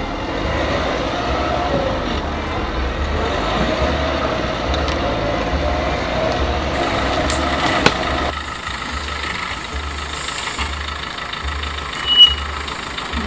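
Suzuki Jimny's engine running at low revs as the 4x4 crawls slowly over a steep, cross-axled rut. A sharp click comes about eight seconds in, and a short, loud squeak near the end.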